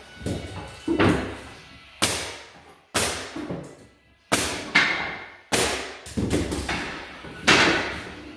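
Hammer or mallet blows on hardwood flooring boards being fitted: about eight sharp knocks at uneven intervals, each ringing off briefly in the room.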